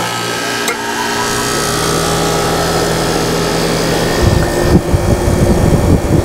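Condenser fan motor of a central air conditioner's outdoor unit running with a steady hum and a few constant tones, the fan blowing air up out of the unit after its wiring was reversed to correct its direction. From about four seconds in, a gusty rush of air buffets in.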